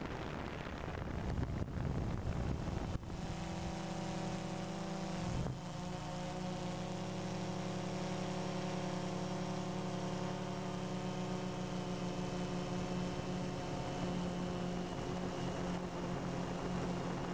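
DJI Phantom 2 quadcopter's electric motors and propellers hovering with a steady, even multi-tone hum. For the first three seconds a rushing, wind-like noise covers it. The hum falters briefly about five seconds in.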